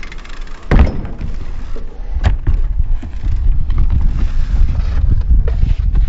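BMX bike landing on a wooden ramp with a thud about a second in, a second knock a little past two seconds, then its tyres rolling over the plywood ramps with a steady low rumble.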